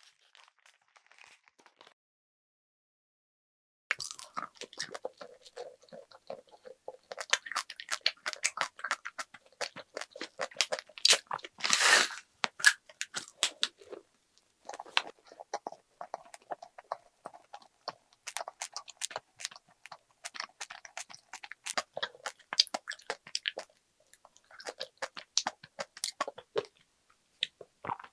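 Close-miked chewing and crunching of a snack, with many sharp mouth clicks that start about four seconds in.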